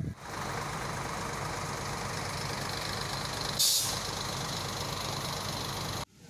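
A vehicle engine idling steadily, with a short loud hiss about three and a half seconds in. The sound cuts off suddenly near the end.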